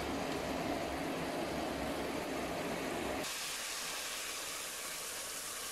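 Pan of chana dal sizzling and hissing as it is sautéed in spiced oil on a gas stove. A low hum under it stops abruptly about three seconds in, and a brighter, higher hiss carries on.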